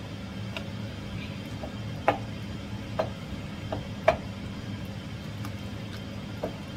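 Wooden spoon stirring a thick coconut-milk chicken stew in a metal pot, tapping against the pot's sides in irregular knocks, the loudest about two and four seconds in, over a steady low hum.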